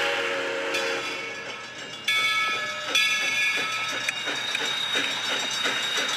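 Steam locomotive whistle sounding over a steady hiss of steam, with a new, higher blast starting about two seconds in. Faint regular chuffing beats from the engine run under it as the train departs.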